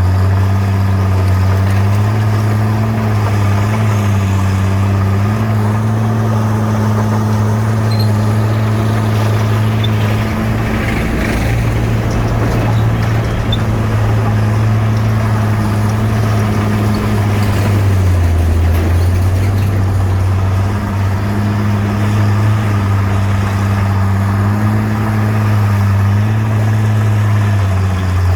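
Heavy diesel engine of a bulldozer running steadily, its engine speed shifting up and down a little. About a third of the way in there is a short stretch of added rough noise.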